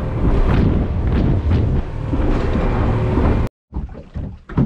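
A boat running on the water, its motor humming under heavy wind buffeting on the microphone. The sound cuts off suddenly about three and a half seconds in, followed by a few quiet knocks.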